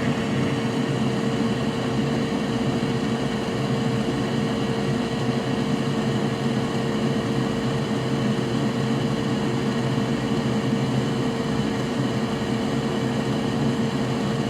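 Steady whir of an electric fan running, with a constant mid-pitched hum.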